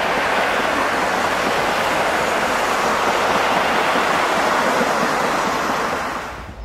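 Passenger carriages rolling past on the rails: a steady rushing noise of wheels on track, dying away near the end as the last van clears.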